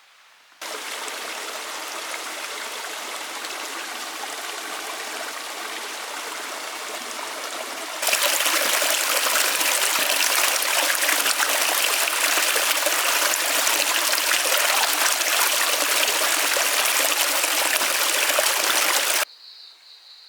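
Stream water flowing steadily, in two abrupt cuts: the second, from about eight seconds in, is louder and stronger. It stops suddenly near the end.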